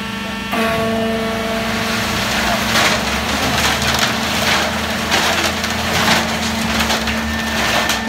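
Concrete mixer pump running as its mixing drum tips to discharge. About half a second in, the machine's drone steps up and gets louder. From about two and a half seconds on, a gritty crunching rush of wet concrete slides out of the drum onto the hopper's steel grille, coming in irregular surges.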